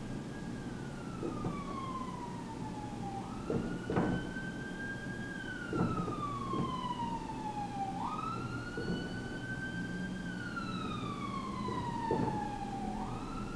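A siren wailing in slow cycles: each cycle is a quick rise in pitch followed by a long falling glide, repeating about every five seconds. A few short knocks, from a marker on a whiteboard, are heard against it.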